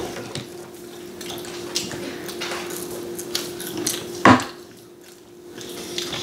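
Mealtime table sounds: a plastic fork tapping and scraping in plastic takeout containers, with scattered small clicks and one louder knock about four seconds in, over a steady faint hum.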